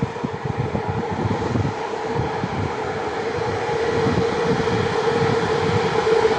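Class 060-EA six-axle electric locomotive running with a steady high whine over a low rumble, slowly growing louder.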